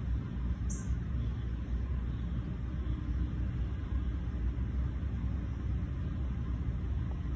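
Wind buffeting the microphone: a steady, uneven low rumble, with one short high click under a second in.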